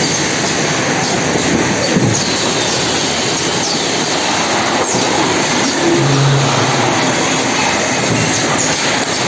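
Automatic packaging-line machinery running: a steady, dense mechanical din with a few brief high squeals that drop in pitch.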